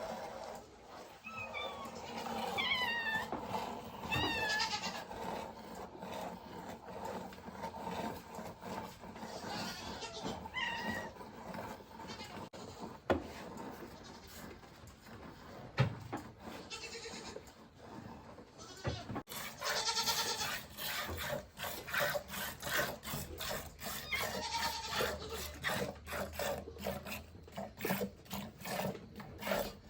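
Nigerian dwarf goats bleating, several wavering calls in the first half. In the second half a fast run of short, repeated sounds follows.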